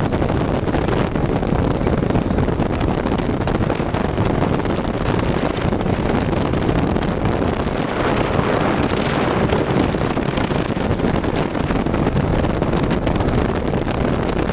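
Steady wind noise buffeting the microphone, mixed with the running engine and driving noise of a 2012 Arctic Cat Wildcat 1000 side-by-side on a dirt trail, heard from inside its open cab.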